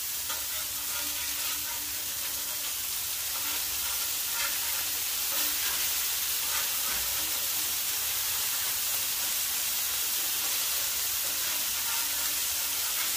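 Thin smash burger patties sizzling steadily on a hot Blackstone steel griddle, still frying on their first side with moisture cooking out.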